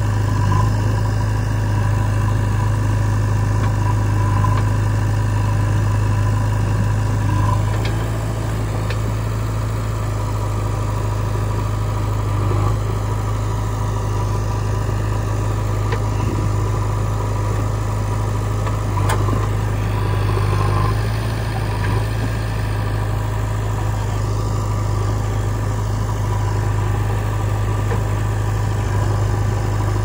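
Diesel engines of a JCB 3DX backhoe loader and a Mahindra 475 DI tractor running steadily as the backhoe digs soil and swings its loaded bucket over the tractor trolley, with a few light knocks.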